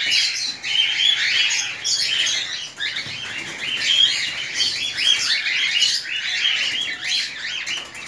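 A crowd of small caged birds in an aviary chirping and calling all at once: a dense, continuous chatter of short, high chirps.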